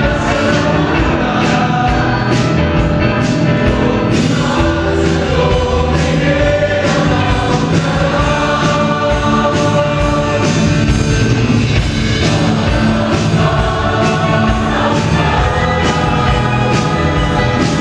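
Mixed choir of men and women singing in harmony, backed by a live band with drums keeping a steady beat.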